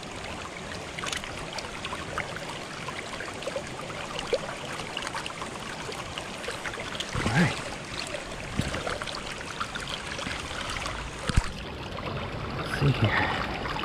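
Small rocky stream running steadily over stones, with a few brief louder sounds over it, one a sharp click about eleven seconds in.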